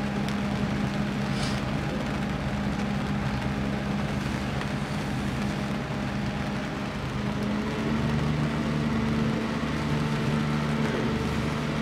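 A sailboat's inboard engine running steadily as the boat motors slowly ahead, with an even hum that grows a little louder about eight seconds in.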